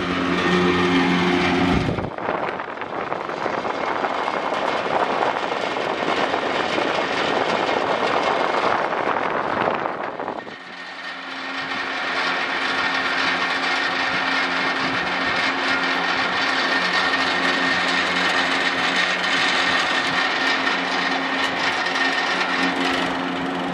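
Panasonic FV-40AFU 16-inch industrial exhaust fan running, its motor giving a steady hum under the rush of air through its open shutter louvres. About two seconds in, the hum drops back under a broader rushing noise. A little past the middle it comes back clearly, with a thin high tone on top.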